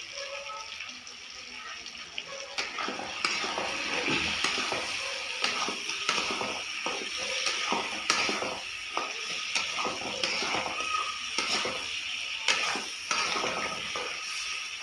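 Chicken curry sizzling in a black kadai over a gas flame, with a spatula scraping and clacking against the pan as it is stirred. The sizzle gets louder a couple of seconds in, and the scrapes come thick and fast through the second half.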